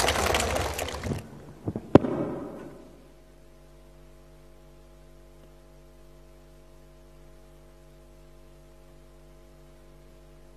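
Loud concert sound cuts off abruptly about a second in. A single sharp pop follows at about two seconds, and then only a faint, steady hum of several low tones remains.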